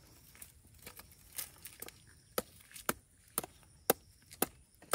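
Small dry sticks being chopped with a broad-bladed knife: sharp wooden knocks, a few faint ones at first, then louder and evenly spaced about two a second from about halfway in.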